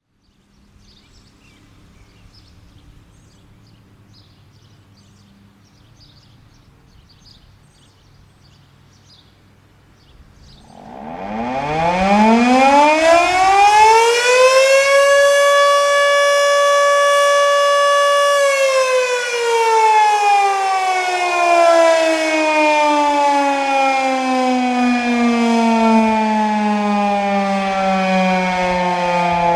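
Sireno Type 5 outdoor warning siren sounding its noon whistle: about a third of the way in it winds up to a single steady tone, holds it for a few seconds, then winds down slowly and is still sounding at the end.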